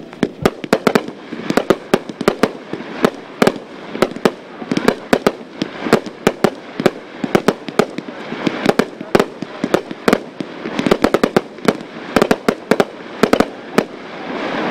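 Pyro Demon 'Chaos' 1,000-gram consumer finale cake (48 shots) firing: a continuous run of sharp bangs from launches and aerial breaks, several a second without a pause.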